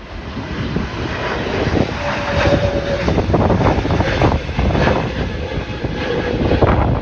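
Hawaiian Airlines Airbus A321neo's twin turbofan engines at takeoff power as the jet climbs out. The engine noise builds over the first couple of seconds, then stays loud with a faint steady whine in it.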